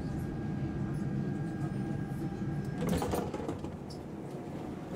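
Inside a Vienna U-Bahn subway car: a steady low rumble with a thin steady tone. The tone stops about three seconds in, right at a short clattering burst, and the rumble eases a little after it.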